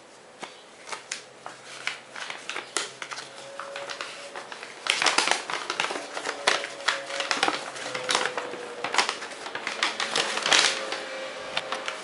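Paper crackling and rustling as a folded instruction sheet is unfolded and handled. The crackles are scattered at first and come thick and loud from about five seconds in.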